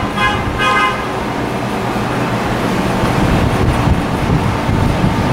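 Subway train horn sounding two short blasts in the first second, followed by the steady rumble of the approaching train on the tracks.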